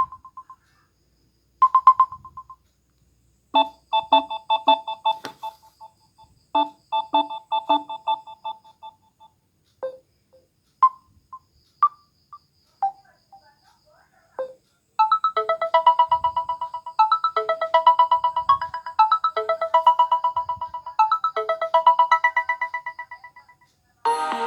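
Samsung Galaxy A20s ringtones and alert tones playing one after another. First come a couple of single chime notes and short electronic note patterns, then a few isolated notes. In the last third, a ringtone melody repeats over and over and then stops shortly before the end.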